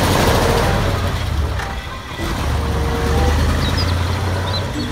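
Diesel engine of a concrete mixer truck pulling away, with a strong low rumble. The engine note drops briefly about two seconds in and then picks up again.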